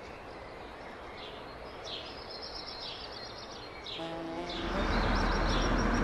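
Birdsong sound effect, short high chirps every second or so. From about four seconds in, a monster truck's engine rumble grows loud and holds.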